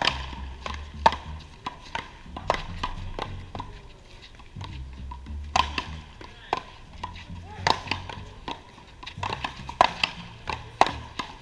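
Paddleball rally: sharp cracks of the ball struck by paddles and rebounding off the wall, coming about once a second with a few closer together.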